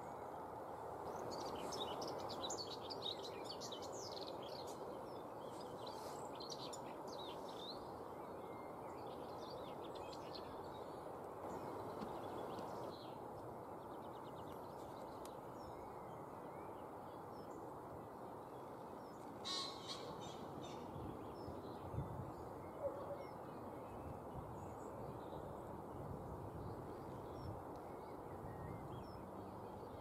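Small birds chirping and singing in quick bursts over steady outdoor background noise, busiest in the first ten or so seconds. One sharp, louder bird call comes about twenty seconds in, followed by two brief knocks.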